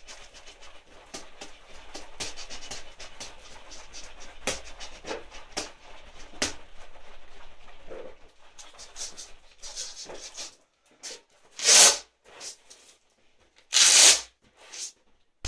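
A fast flurry of punches thrown in 14 oz boxing gloves: a dense patter of quick swishes and rustles from the gloves and sleeves, stopping about ten seconds in. Near the end come two loud, noisy bursts close to the microphone.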